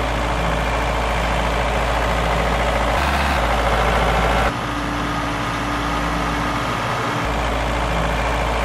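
Heavy farm machinery running steadily with its engine's deep hum, changing to a slightly quieter engine sound about four and a half seconds in.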